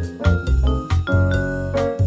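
Background music: light, bouncy instrumental with tinkling mallet-like notes over a steady bass.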